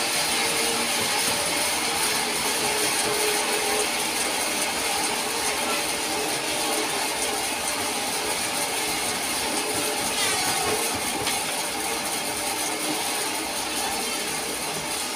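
Diesel-driven band sawmill running steadily, a continuous mechanical drone from the engine and the spinning blade.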